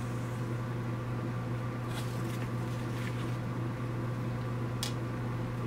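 Airbrush air compressor running with a steady low hum. A few faint light clicks come over it.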